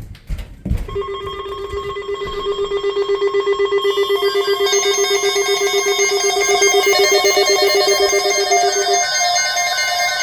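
Electronic emergency alert tone: a rapidly pulsing, ringing stack of steady pitches that starts about a second in after a few short clicks, growing louder and fuller as more tones join around four seconds in.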